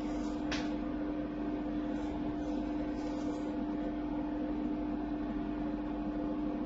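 Steady electrical hum with a droning tone over a soft hiss, and one faint click about half a second in.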